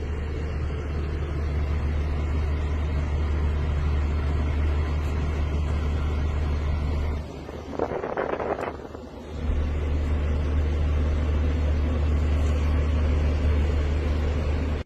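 A steady low motor hum that drops out for about two seconds midway, with a short burst of noise just as it drops out.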